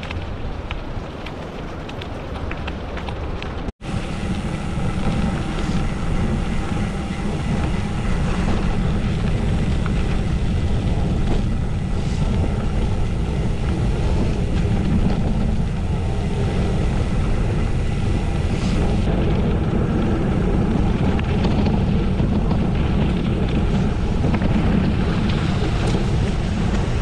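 Wind buffeting the microphone of a camera riding along on a gravel bike, a steady noise heaviest in the low end. It drops out for an instant about four seconds in, then comes back louder.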